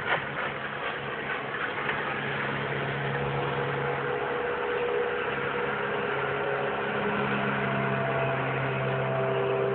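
Small motorboat's engine running at speed across open water, a steady engine tone that slowly grows louder.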